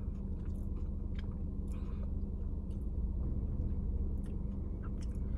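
Faint clicks and small crinkles of a taco and its food wrapper being handled, over a steady low hum inside a parked car.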